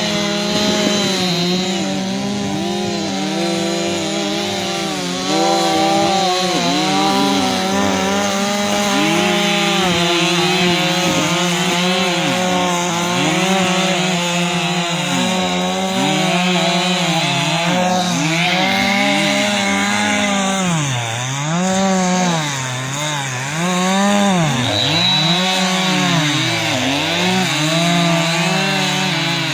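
Several chainsaws running at once, cutting into thick river ice, their engine pitch rising and dropping as the chains bite into the cut and rev again. After about twenty seconds one saw's pitch swings down and back up repeatedly.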